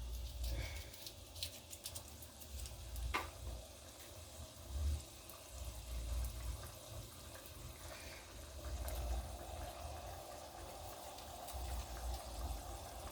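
Milky tomato stew being stirred in a cooking pot, the liquid sloshing, with a few sharp clicks of the spoon against the pot.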